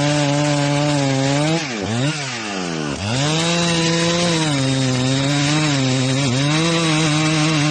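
Chainsaw cutting wood, running at high revs. Between about one and a half and three seconds in, the engine's pitch drops sharply and then climbs back, with a shorter dip about six seconds in.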